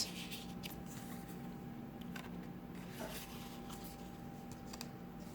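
Faint rustles and light taps of paper and card being handled, as journal cards are tucked into their pockets and pages shift, over a steady low hum.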